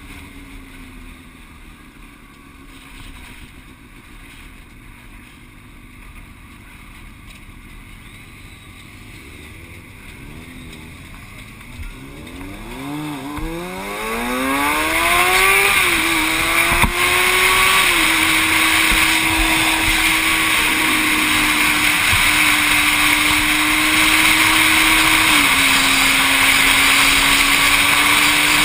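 Motorcycle engine running quietly at low speed, then accelerating hard about halfway through, its note rising sharply, before holding a steady high-speed note. From then on loud wind rush on the helmet-mounted camera covers much of the sound.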